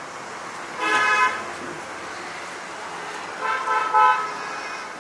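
Car horn honking: one honk about a second in, then two short honks near the end.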